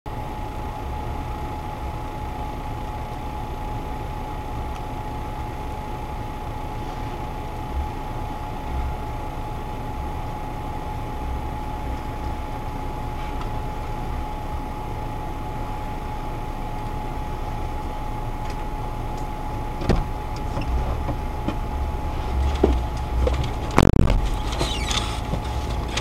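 Off-road vehicle's engine idling at a standstill: a steady low rumble with a steady high whine over it. A few knocks sound in the last six seconds, the loudest about two seconds before the end.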